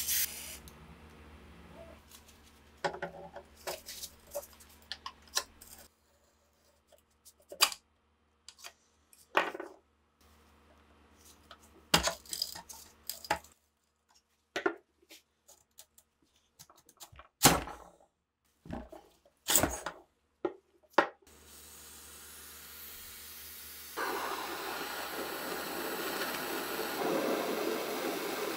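A short hiss of aerosol penetrating oil at the start, then scattered sharp metal clicks and scrapes from a screwdriver working at the rusty spring and cap on an SA-26's barrel. Over the last few seconds comes a steady spray hiss as the oil goes on again.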